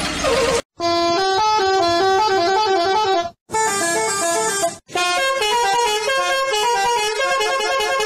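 A bus's multi-tone musical horn playing a quick tune of short stepped notes, in several phrases with brief breaks between them.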